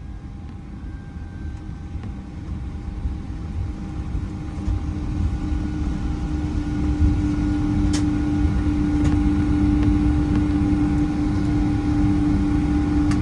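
Cabin noise of a Boeing 767-300ER's jet engines and airflow during the landing. It is a steady drone that grows louder over the first several seconds, with a steady hum settling in, and two faint clicks, one in the middle and one near the end.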